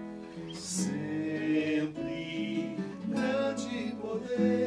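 Acoustic guitar playing a song in 6/8 time, chords ringing between sung lines.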